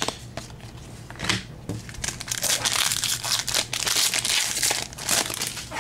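Foil trading-card pack wrapper being torn open and crumpled by hand: a few scattered crackles at first, then a dense run of crinkling from about two seconds in until just before the end.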